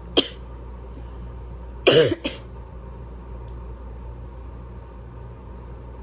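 A woman with a cold sneezing: a short sharp sneeze just after the start, then a louder, voiced sneeze about two seconds in with a quick second burst right after it.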